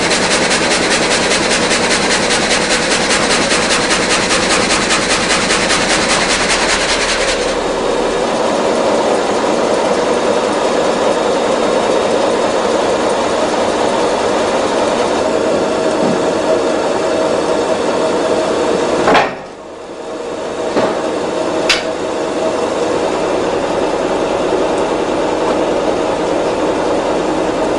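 Multi-blade rip saw machine running, a loud, steady mechanical noise. About seven seconds in the high hiss drops away, and near twenty seconds the sound dips briefly, with a few sharp knocks.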